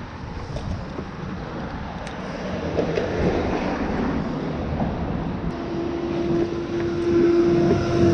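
Low rumble of passing vehicle traffic. A steady hum comes in about two-thirds of the way through and begins to drop in pitch near the end, like a vehicle going by.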